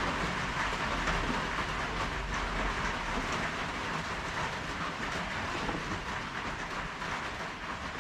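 Rain drumming steadily on a tin roof: a dense, even patter of drops with no let-up.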